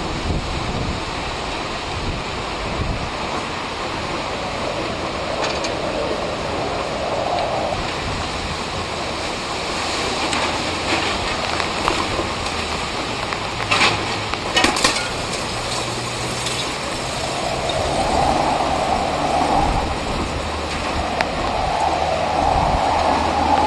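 Hurricane wind and driving rain making a steady roar of noise that swells with the gusts, with wind buffeting the microphone. A few sharp knocks come about fourteen seconds in.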